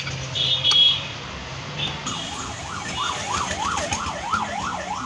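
An emergency vehicle siren in rapid yelp mode, starting about two seconds in, its pitch sweeping up and down about three times a second, over general street noise.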